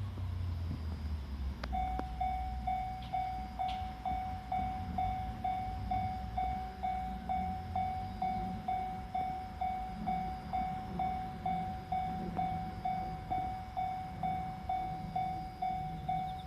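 Japanese level-crossing electronic warning alarm starting up about two seconds in and then ringing on steadily in quick, evenly spaced dings, roughly three a second: the crossing is warning of an approaching train. A low rumble sits under the first couple of seconds.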